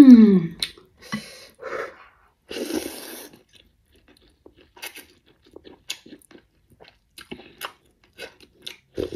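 Close-up mukbang eating sounds: a brief hummed 'mmm' right at the start, a few short slurps of rice noodles and broth in the first three seconds, then soft wet chewing clicks, with a louder slurp or clink near the end.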